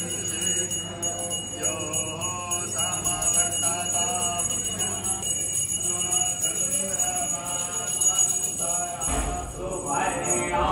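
A hand bell rung continuously, its steady high ringing carried over group devotional singing (kirtan).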